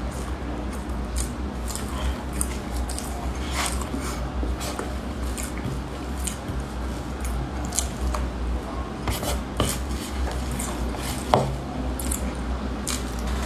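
Close-up eating sounds: a metal spoon scooping and scraping dense Basque cheesecake against its plate, with soft chewing and small mouth clicks, as scattered short sharp clicks over a steady low hum.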